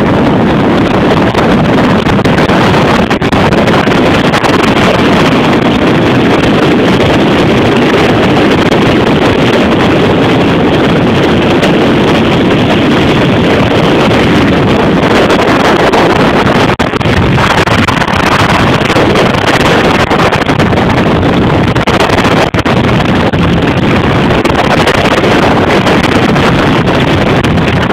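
Bass boat running at speed: heavy, steady wind buffeting on the phone's microphone, over the run of the outboard motor and the rush of water past the hull.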